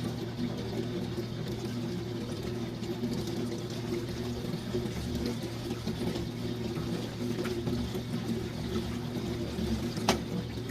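Antique wringer washing machine running: a steady motor hum with water sloshing in the tub, and one sharp click about ten seconds in.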